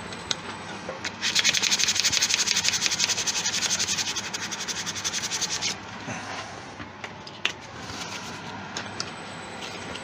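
Sandpaper held against a deer-antler pen blank spinning on a wood lathe, a rapid pulsing rasp of about nine pulses a second from about one second in until near six seconds, then easing off to a quieter hiss.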